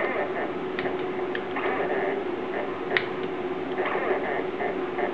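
Home-built Fellows-type gear shaper running as its shaper cutter cuts teeth in a metal gear blank: a steady motor hum with a sharp tick about every two seconds.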